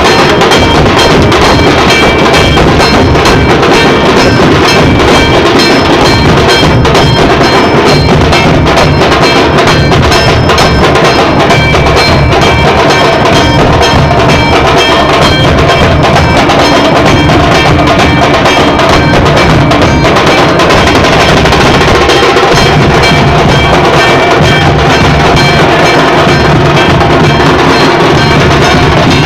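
Loud, heavily compressed music driven by fast percussion: dense, continuous drumming with a steady beat and held tones over it.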